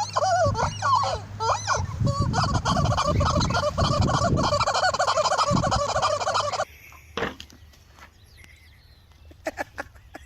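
Turkeys gobbling: a run of rapid, warbling gobbles that thickens into a dense overlapping chorus, then cuts off abruptly about two-thirds of the way through. A few faint clicks and knocks follow.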